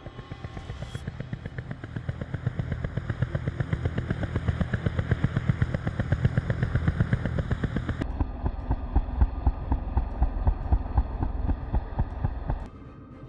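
Automatic gunfire: a fast, evenly spaced stream of sharp cracks that keeps going for about twelve seconds, changes in tone about eight seconds in, and drops away near the end.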